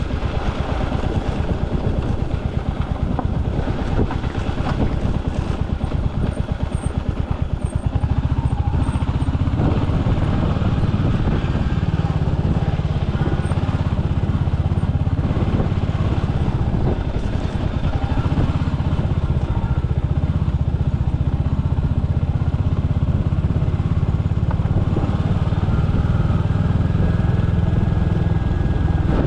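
Royal Enfield Hunter 350's single-cylinder engine running as the motorcycle is ridden, a steady low exhaust pulse that changes note about eight seconds in.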